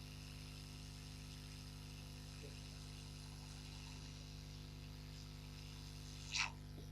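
Steady low electrical hum with a faint hiss over it, and one short sharp click or tap about six seconds in.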